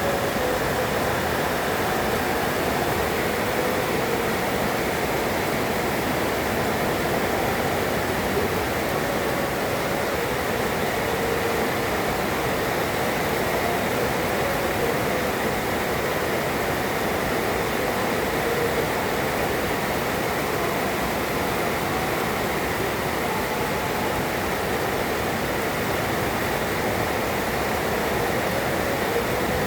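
Heavy rain pouring down steadily, an even rushing hiss with no break.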